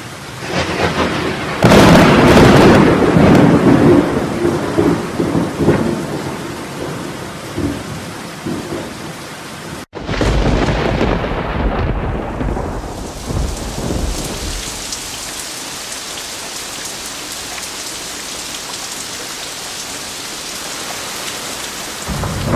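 A loud thunderclap about two seconds in rolls into rumbling thunder over falling rain. The sound cuts off abruptly near the middle, then a second roll of thunder fades into the steady hiss of rain.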